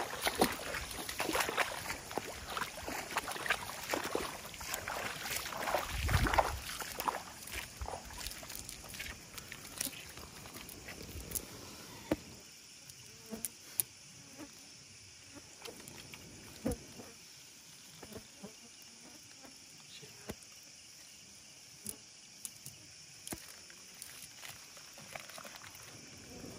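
Shallow water splashing and sloshing with many small knocks as a cast net is worked in a stream, busy for the first several seconds. It then settles into quieter, occasional clicks and rustles of the wet net being picked through by hand, over a steady high hiss.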